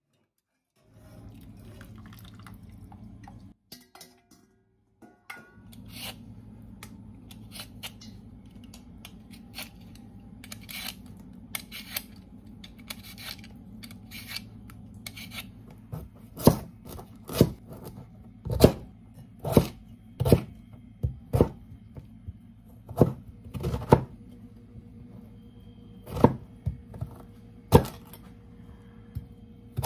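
A vegetable peeler scraping the skin off a raw beetroot in quick repeated strokes. About halfway through, a knife starts chopping the beetroot on a plastic cutting board, with a sharp knock about once a second; these knocks are the loudest sounds.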